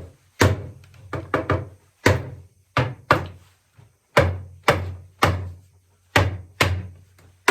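Wooden rocker being knocked down onto the walnut chair's legs: a series of sharp wooden knocks with a dull thud, about two a second at an uneven pace, driving the joint to a tight fit.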